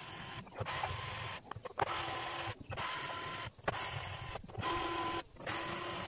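Cordless drill running in about seven short bursts with brief pauses between them, a steady motor whine in some runs, as it drives screws to mount a 12-inch speaker in its cabinet.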